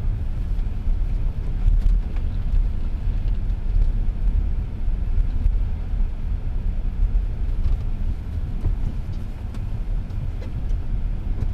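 Car driving slowly, with a steady low engine and tyre rumble heard from inside the cabin.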